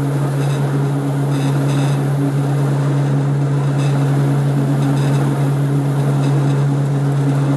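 A workshop machine's motor running with a steady low hum, with faint light ticks now and then.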